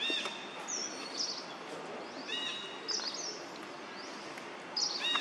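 Birds chirping over a steady outdoor hiss: short, sharp, high chirps about once a second, with three brief lower whistled calls near the start, in the middle and near the end.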